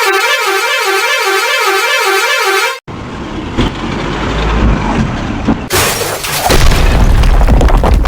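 A warbling siren-like tone that wavers up and down about three times a second, cut off abruptly after about three seconds. It is followed by a low rumble with clatter and clicks, which grows louder near the end.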